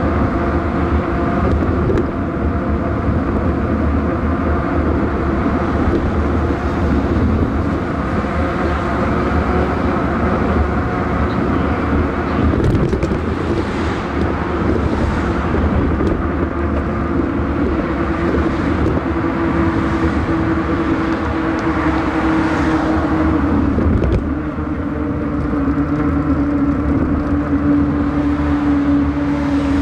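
Steady road noise of car traffic on the highway beside a bike path, with a rush of wind and a constant hum underneath whose pitch drops slightly late on.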